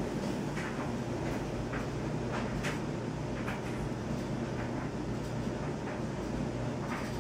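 A steady low hum with faint, irregular ticks and rustles scattered through it.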